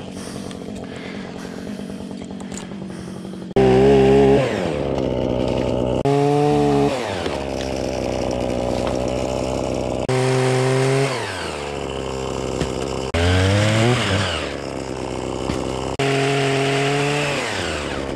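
Motorised pole saw run in about five short full-speed bursts while cutting branches, each burst starting suddenly and winding down with a falling pitch when the trigger is released.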